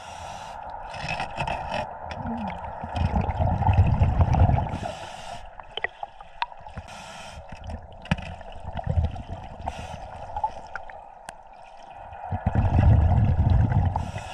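Scuba diver breathing through a regulator underwater: short hissing inhales alternating with bubbling exhales, the two longest exhale bursts a few seconds in and near the end. A few sharp clicks come in the middle.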